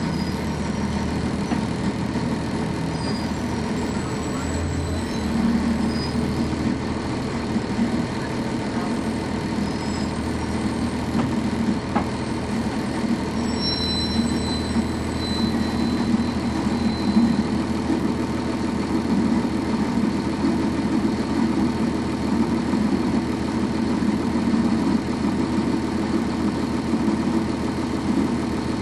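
Cummins ISC diesel engine of a 1999 NovaBus RTS transit bus heard from inside the bus, running steadily with a low drone and body rumble.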